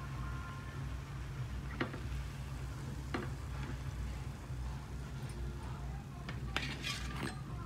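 Long metal spoon clicking against an iron kadai a few times as a batter-fried bread sandwich is lifted out of the oil, over faint sizzling and a steady low hum. A brief clatter near the end.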